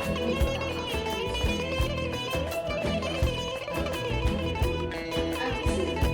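Background music led by plucked guitar, with steady picked notes.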